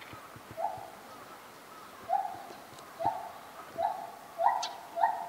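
Animal calls: a series of short, clear hoots at one steady pitch, coming faster and louder toward the end.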